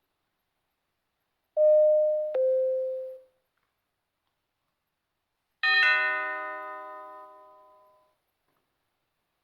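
Doorbell chimes: a two-tone ding-dong about one and a half seconds in, the second note lower than the first. A few seconds later comes a single fuller chime that rings and fades over about two seconds.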